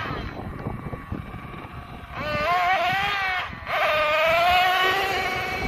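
Nitro engine of a Thunder Tiger Sledge Hammer S50 RC monster truck, a high-pitched buzzing at full throttle: quieter at first, then revving hard with the pitch rising and falling, a short lift-off just past the middle, and a second long run at high revs.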